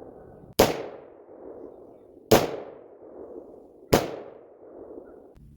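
Colt M4 carbine firing 5.56 mm green-tip rounds in slow, aimed single shots: three sharp cracks about a second and a half apart, each followed by a fading echo.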